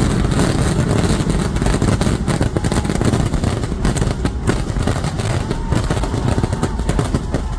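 Fireworks barrage: a continuous rumble of rapid, overlapping blasts and crackling, heavy in the low end, with a faint whistle gliding through it in the second half.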